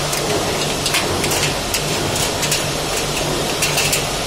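Steady background noise with a low pulsing hum, and scattered light clicks as steel shelving parts and tools are handled.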